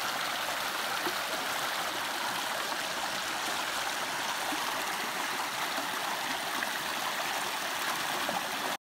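Small rocky creek running over stones and through a little cascade, a steady rush of water that cuts off suddenly near the end.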